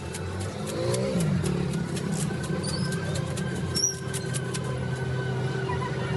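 An engine running steadily, with scattered clicks.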